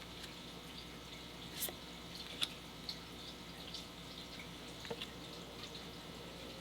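Trading cards handled and flipped through by hand: a scatter of soft, sharp clicks and ticks as the cards slide and tap against each other. The sharpest come about one and a half and two and a half seconds in.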